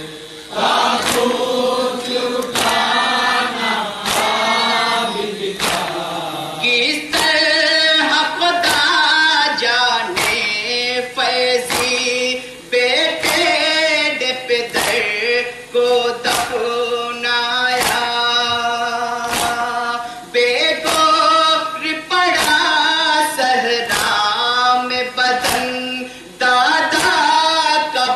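Urdu nauha, a Shia lament for Muharram, sung by a male reciter with a group of men chanting along. Sharp slaps of chest-beating (matam) keep time about once a second.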